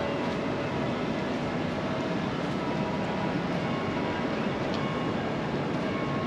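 Steady outdoor city noise: a continuous even rumble and hiss with a few faint steady hums, like machinery or traffic, and no single event standing out.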